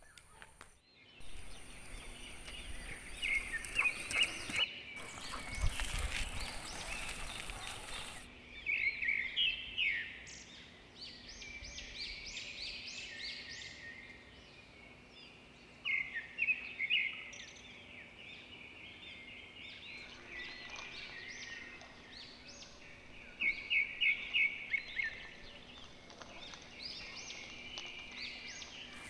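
Birds chirping in quick bursts of short, high notes, repeating every few seconds. A rushing noise fills the first several seconds.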